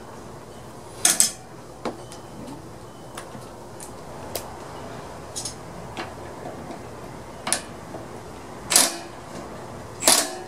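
Sharp metal clinks and clicks of sockets and a cordless driver being handled, single clinks scattered a second or more apart, the loudest near the end.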